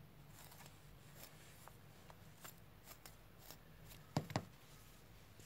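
Faint rustling and light clicks of hands handling a crocheted doll and its long yarn hair, with two short dull bumps a little over four seconds in.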